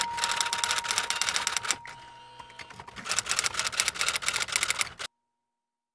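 Typewriter keystroke sound effect typing out on-screen text: rapid clacking strokes for about two seconds, a short pause, then another two seconds of rapid strokes, cutting off suddenly about five seconds in.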